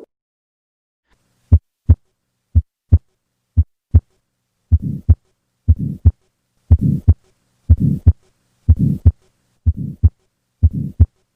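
Heart sounds heard through a stethoscope, with a harsh systolic murmur typical of tetralogy of Fallot. After a short silence come clean paired lub-dub beats about once a second. From about five seconds in, a murmur fills the gap between the first and second sound of each beat.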